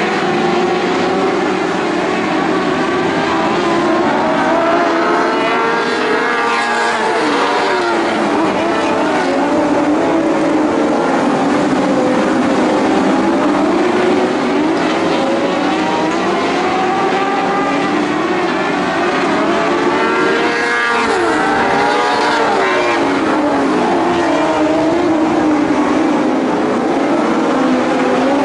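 Several Lightning Sprint race cars running laps on a dirt oval, their engines' pitch rising and falling as they accelerate, lift and pass one another.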